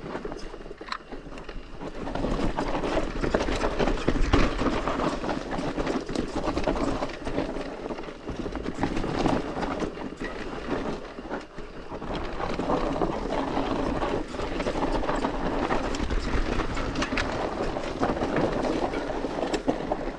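Santa Cruz Bullit electric mountain bike rolling fast down a dirt trail: knobby tyres on dirt and leaves, with the bike clattering and rattling over bumps, louder and softer in waves as the terrain changes.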